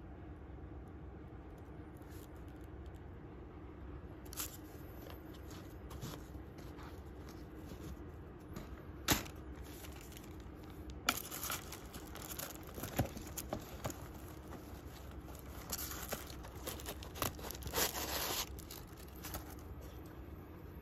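Tissue paper crinkling and rustling in scattered bursts, with a few sharp clicks, as a new shoe is handled in its paper-lined box; the crinkling is busiest in the second half, over a steady low hum.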